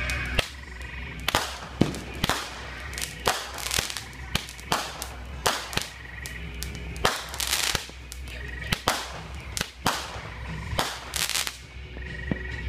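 Fireworks going off: an irregular string of sharp bangs, about two a second, each with a short echoing tail. A faint pulsed trill repeats in the background.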